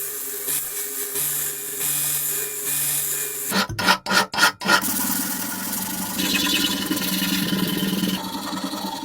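Electric power tool motor running steadily, with a few abrupt cut-outs a little under four seconds in, then running on with more hiss.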